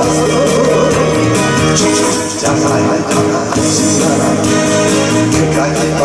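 Male singer singing a Korean trot song into a handheld microphone over a backing track. The sung line is clearest near the start and again near the end, with the accompaniment carrying the middle.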